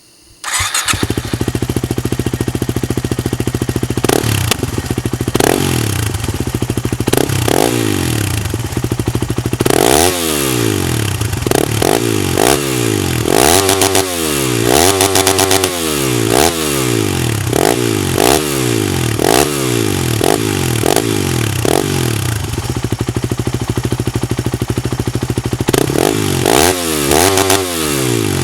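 Yamaha WR250R's single-cylinder four-stroke engine through a Yoshimura RS-4 exhaust, cutting in suddenly about half a second in and then running at idle. Between the idle stretches it is revved repeatedly, each rev rising and falling back. A run of quick throttle blips comes in the middle, with more near the end.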